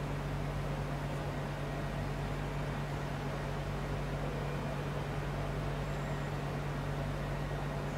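Steady mechanical hum with a constant low drone tone over an even hiss, unchanging throughout.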